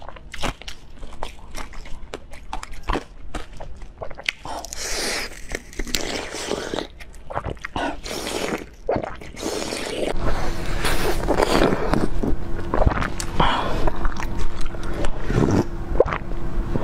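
Clear ice with basil seeds frozen in it being bitten and chewed close to the microphone: sharp cracks and crunches with scraping. From about ten seconds in the crunching gets louder and denser over a faint steady hum.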